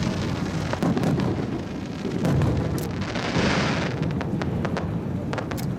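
Fireworks going off overhead: repeated low booms and rumbles with scattered crackling, and a hissing burst about three seconds in.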